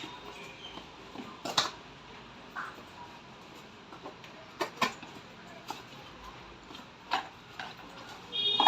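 Scattered clicks and knocks, about seven spread unevenly over several seconds, as a boxed phone and its delivery packaging are handled.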